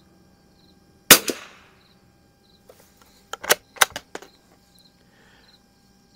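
A single .22 LR rifle shot from a Winchester 52D bolt-action target rifle firing Browning Pro22 40-grain round-nose ammunition, a sharp crack about a second in with a short ringing tail. About two seconds later comes a quick run of quieter sharp clicks.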